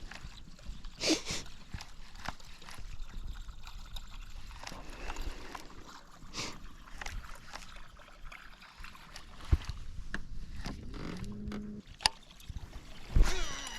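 Wind rumbling on the microphone over the open water of a fishing boat, with scattered knocks and clicks from gear being handled, a short rising tone about eleven seconds in, and a louder knock near the end.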